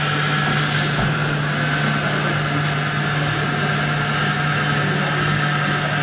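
Steady hum and whir of radio-controlled model construction machines working, their small electric motors and hydraulic pumps running, with a few faint clicks.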